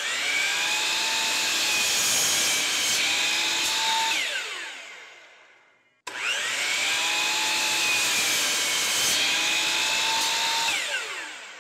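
A DeWalt sliding miter saw runs twice while cutting a half-inch-thick UHMW plastic plow edge to length. Each time the motor starts suddenly with a rising whine, runs steady for about four seconds, then winds down with a falling whine.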